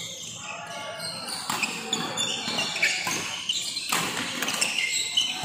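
Badminton rally in an indoor hall: a string of sharp racket strikes on the shuttlecock mixed with short high squeaks from shoes on the court, over a low murmur of voices.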